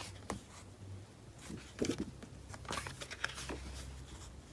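Large A4 photo prints being handled and leafed through: short, irregular rustles and crinkles of paper.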